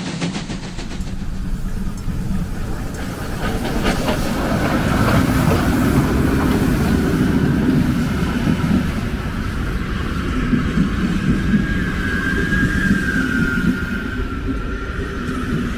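Steam special train hauled by class 52 freight locomotive 52 7596 rolling close past, its tender and then the passenger coaches going by with a steady rumble of wheels on rail and a few sharp clicks. A thin, wavering squeal rises over the rumble in the last few seconds.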